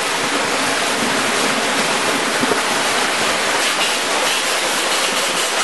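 Outburst flood water rushing steadily through a breach in an earthen sand dam and down a flume, a continuous even noise like a waterfall.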